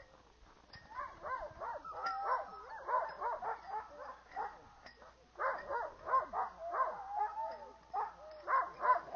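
Many sled dogs barking and yelping together, their calls overlapping in three waves with short lulls between.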